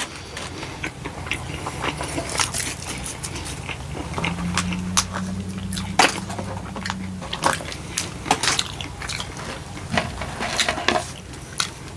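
Close-up chewing of crispy battered onion rings: repeated crunches, wet mouth clicks and smacks. A low steady hum swells in the middle for about three seconds.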